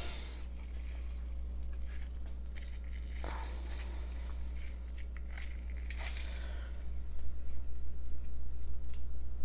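Limes being squeezed by hand, with scattered small clicks and handling noises that grow busier and louder over the last couple of seconds, over a steady low hum.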